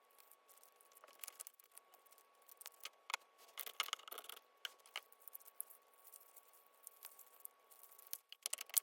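Slime being kneaded and stretched by hand, mixing in food colouring: faint, irregular small sticky clicks and pops, busiest around four seconds in and again near the end.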